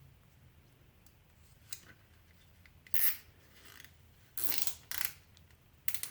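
Nylon zip ties being worked: four short, sharp rasping zips and snips, about three seconds in, twice close together just after four seconds, and once near the end.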